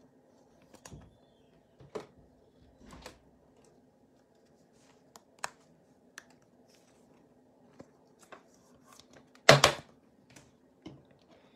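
Handling of a trading card and a clear plastic penny sleeve: soft rustles and light clicks as the card is slid in and handled. One sharp, loud knock about nine and a half seconds in, as something is set down on the table.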